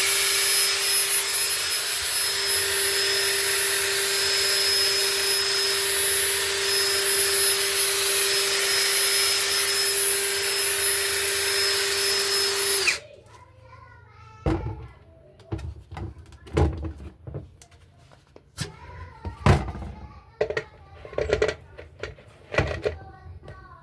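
Electric drill running at a steady speed with a steady whine, then cutting off about halfway through, followed by a series of knocks and clatter.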